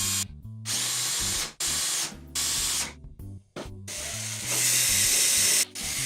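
Handheld electric drill boring through the steel bar of a quick-release wood clamp, in several runs that stop abruptly, with background music's bass line underneath.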